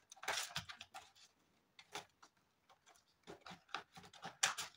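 Light rustling and clicking of a clear plastic binder pouch and a laminated card being handled and put away in a ring binder, in short scattered bursts, with a cluster of clicks near the end.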